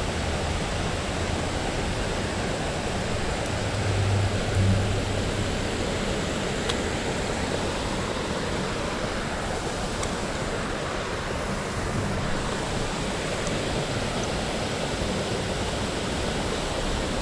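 Steady rush of water pouring over a spillway, with a brief low rumble about four seconds in.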